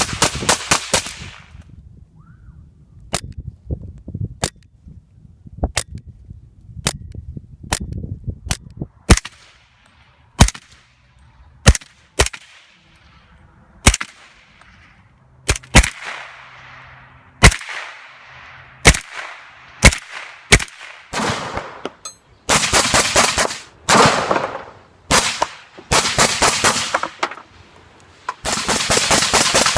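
Suppressed gunfire: a quick string of shots at the start, then single shots every second or so, then several rapid full-auto bursts near the end.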